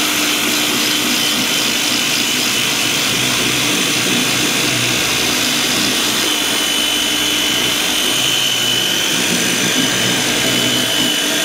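DeWalt DCPW550 20V cordless power cleaner spraying on its high setting: the battery-driven pump's steady whine under the hiss of the water jet blasting caked mud off a plastic ATV fender.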